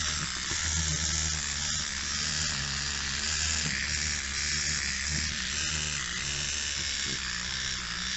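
Clockwork wind-up mechanism of a 1980s Barbie Action Accents toy boombox running, a steady buzzing whir as it turns the little cassette reels, with a few faint clicks from its buttons. It sounds like industrial music.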